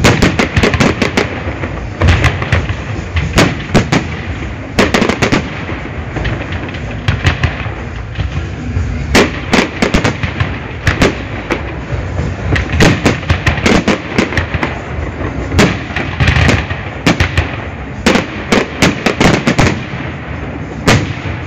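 Fireworks display: a dense barrage of sharp bangs, often several a second in clusters, over a continuous rumble and crackle.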